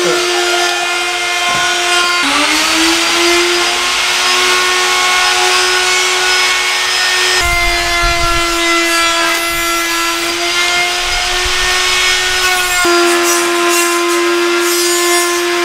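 A small electric motor running steadily with a high whine. Its pitch rises about two seconds in and shifts abruptly twice later on.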